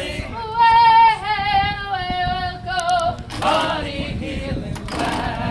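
A woman's voice singing unaccompanied, a long drawn-out note held for a couple of seconds and sliding a little lower, then shorter sung phrases: a sea-shanty-style hauling chant for a crew pulling together on a ship's line.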